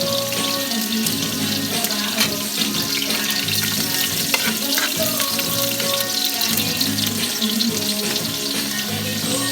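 Background music with a melody in held notes, over a steady watery hiss with small crackles.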